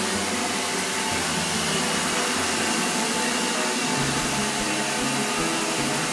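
iClebo robot vacuum cleaner running, a steady hiss from its suction motor and brushes.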